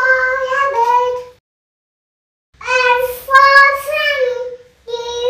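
A toddler girl's high voice reciting the alphabet chart's letters and words, in three short phrases with pauses between.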